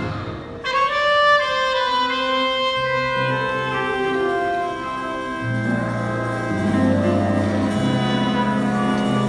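Big band of saxophones, trombones and trumpets playing held chords. After a brief break right at the start, a loud chord comes in about half a second in, and lower notes join from about three seconds in.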